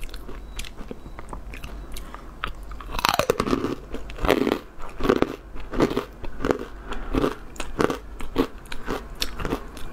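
Crunching and chewing of crispy dried red jujubes (Chinese dates), close to the microphone: many sharp crunches in quick succession that settle into a steady chewing rhythm from about four seconds in.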